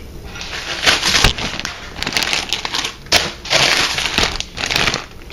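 Irregular crunching and crinkling noise in uneven bursts.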